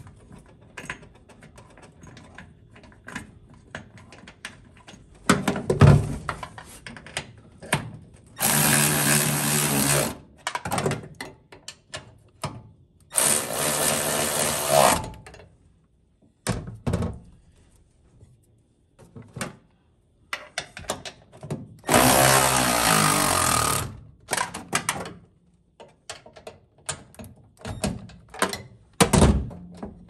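Cordless ratchet running in three short bursts, driving a bolt on the accelerator pedal assembly, with clicks and clanks of tools and metal between the runs.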